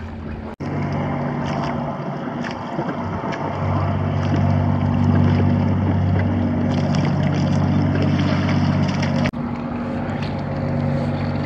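Steady low motor hum over water slapping and splashing against a hull, with wind on the microphone. The sound cuts out sharply twice, at about half a second in and near the end.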